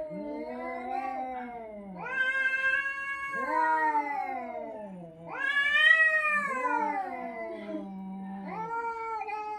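Domestic cat yowling (caterwauling) in a run of long, drawn-out wavering calls that rise and fall in pitch, one after another, loudest about six seconds in.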